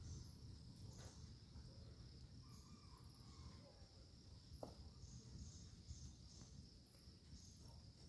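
Faint, steady high-pitched insect chirring, with a few faint short calls and a soft click about halfway through.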